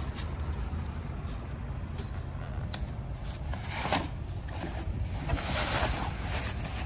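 Wind rumbling on the microphone, with rustling and a couple of sharp taps as a fabric cover is tugged back over a small plywood dinghy; the rustling is loudest about five to six seconds in.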